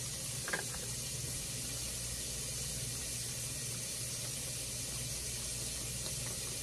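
Steady hiss and low hum of a lit gas stove burner with pots simmering on it, with a light click about half a second in.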